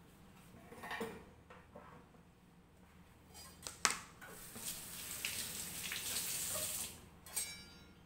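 A sharp knock as a plastic cutting board is set on the counter, then a kitchen tap runs into a steel sink for about three seconds before it is shut off, followed by a brief clatter.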